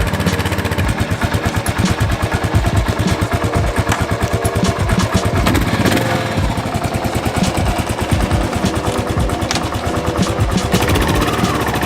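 Kawasaki KLR650's single-cylinder four-stroke engine running with a steady, rapid firing beat.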